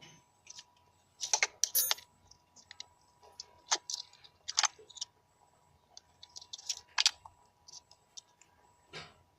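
Irregular small clicks and taps of hands handling wires and small electronic parts, with a faint steady high tone underneath.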